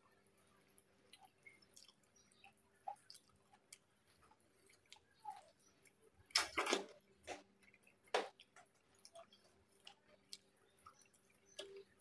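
Close-miked chewing and wet mouth clicks from eating fried chicken by hand, with two louder bites a little past halfway.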